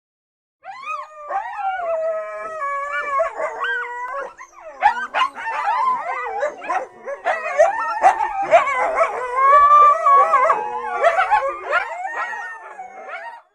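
A pack of canines howling and yipping: one long gliding howl at first, then several voices joining from about five seconds in, overlapping with short yips, stopping abruptly near the end.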